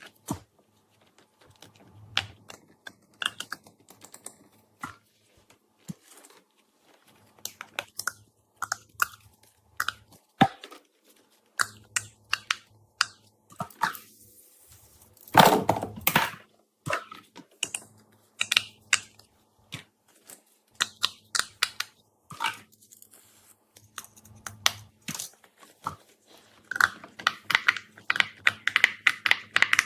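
Irregular close-up crunching and sharp clicks, with a longer, louder crunch about halfway through and a quick run of clicks near the end.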